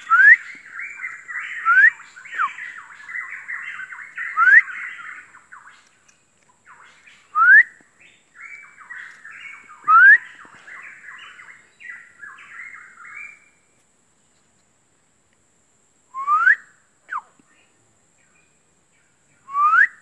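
Pitohui calling: loud, short whistles that sweep upward, repeated every second or few, with a scratchy chattering song running beneath them for about the first thirteen seconds. After that, only single whistles come, one of them a short downward slur.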